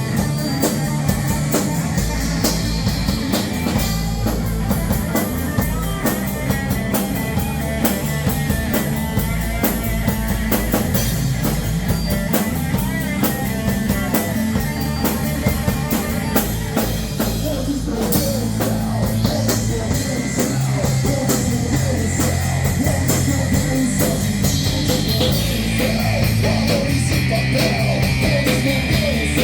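A live rock band playing a song: a drum kit keeping a steady beat under electric guitars and bass, with the guitars growing brighter and fuller about two-thirds of the way through.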